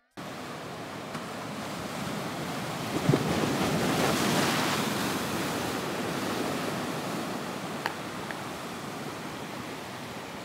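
Sea surf washing, a steady rushing wash that swells louder about three to five seconds in, with a brief knock about three seconds in.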